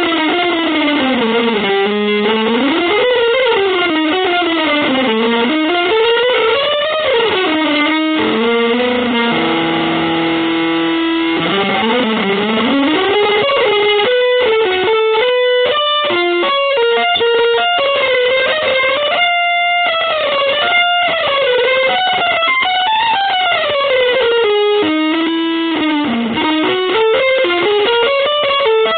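Electric guitar with effects playing an improvised free-jazz/avant-garde line: fast runs that sweep up and down in pitch, broken by a held note and a passage of short, choppy notes about halfway through.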